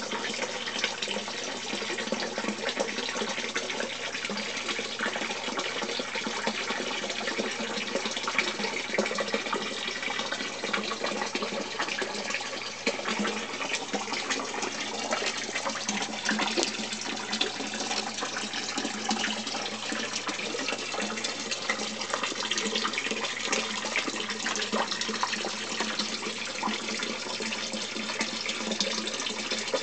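Water splashing and trickling steadily into a koi tank, with many small crackles and a steady low hum underneath.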